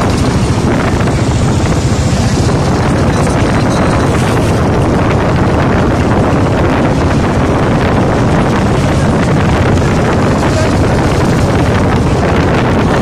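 Motorcycle engines running, a steady loud rumble, with wind buffeting the microphone throughout.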